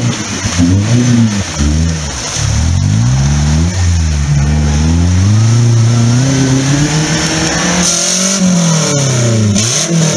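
Off-road 4x4's engine revving hard under load as it climbs out of a mud-filled ditch, the pitch rising and falling with each burst of throttle. The revs are held high for a few seconds in the middle, then drop and pick up again near the end.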